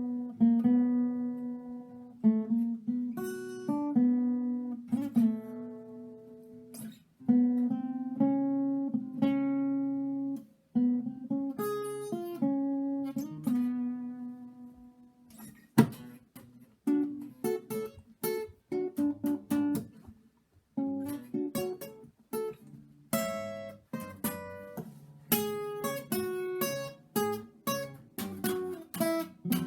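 Acoustic guitar music: slow plucked notes and chords that ring and die away, then a quicker strummed rhythm from about halfway through.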